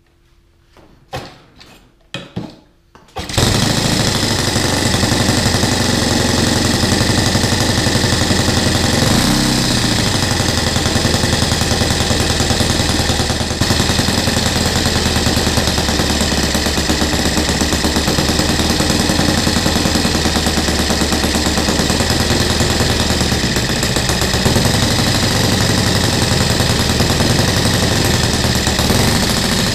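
Brand-new Saito FG-30B 30cc single-cylinder four-stroke gasoline model-aircraft engine being spun in a few short bursts by a hand-held electric starter, then catching about three seconds in and running steadily and loudly, with a brief change in pitch about nine seconds in. It is the engine's first run-in for break-in, with the needles on their factory settings.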